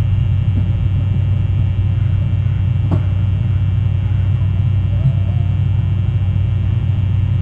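Steady low rumble on the outdoor nest camera's microphone feed, with a faint click about three seconds in and a brief faint wavering call about five seconds in.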